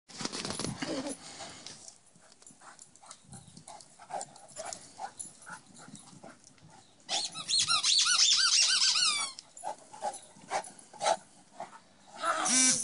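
Two dogs, a Saint Bernard and a black dog, playing over a toy: scuffling and soft knocks, then about seven seconds in a couple of seconds of rapid high-pitched squeals, and a short louder pitched cry near the end.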